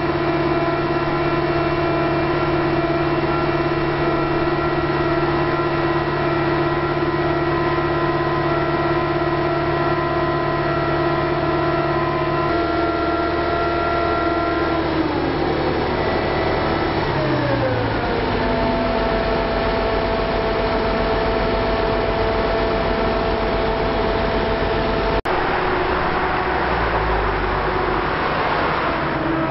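Heavy diesel engine of construction machinery running steadily at raised revs. About halfway through, its speed drops in a smooth glide and settles lower. The sound changes abruptly a few seconds before the end, and the revs fall again at the very end.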